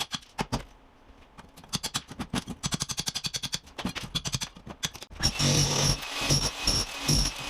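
Wall tile being chipped off with rapid hammering impacts in quick irregular runs. It turns louder and denser about five seconds in.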